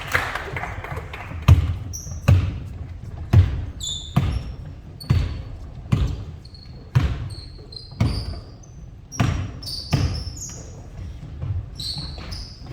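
Basketballs thudding on a gym floor during a passing drill, roughly one hit a second, echoing in the hall, with short high squeaks in between.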